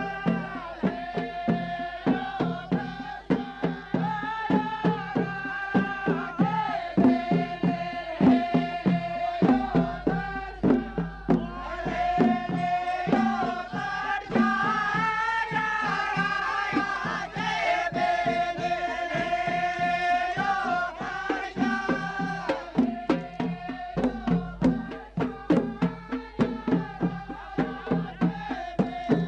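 Middle Eastern-style background music: a steady hand-drum beat under a held, wavering melody line.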